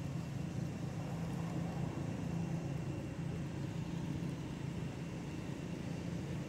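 Steady low hum of vehicle engines and road traffic, even throughout with no distinct events.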